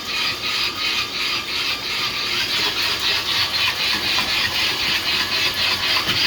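3D-printed outboard motor prototype running at low RPM, spun by a drill, its propeller turning in water: a steady whirring hiss with a fast, even pulsing.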